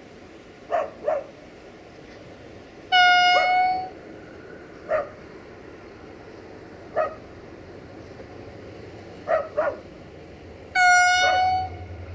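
Diesel locomotive horn sounding two steady single-tone blasts of about a second each, several seconds apart, while a dog barks, mostly in pairs of short barks. A low engine rumble grows near the end as the locomotive approaches.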